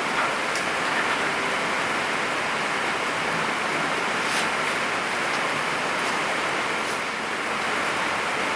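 Steady, even rushing noise with a few faint, light ticks.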